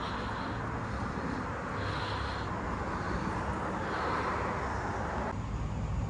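Steady shop background noise with a soft brushing hiss about every two seconds as tire-mounting lube is brushed onto the tire bead; the steady noise drops away a little before the end.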